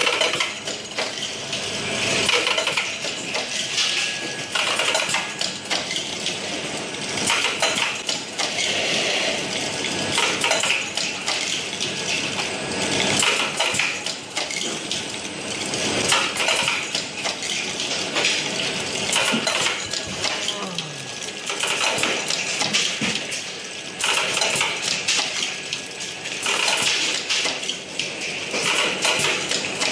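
Electronic capsule counting machine running: hard capsules clattering along its vibrating stainless-steel channels and dropping through the funnel into plastic bottles, a dense, continuous rattle of small clicks.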